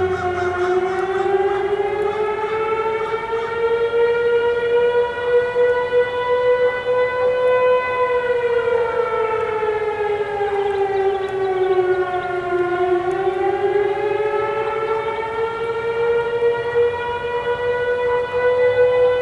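Federal Signal STH-10B outdoor warning siren sounding the attack signal: a slow wail that rises, falls about twelve seconds in, and climbs again. A fainter steady siren tone runs underneath, the 3T22A sounding the alert signal.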